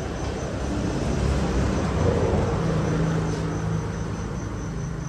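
Low rumble of a passing vehicle, swelling to a peak about two seconds in and then fading, over steady cricket chirping.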